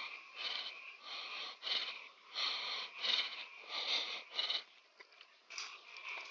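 A person breathing hard and fast, a noisy breath roughly every half second to second, the breaths fading out for the last second and a half.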